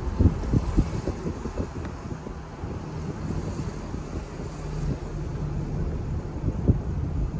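Car driving along a street: steady low road and engine rumble, with wind buffeting the microphone in low thumps, strongest near the start and again near the end.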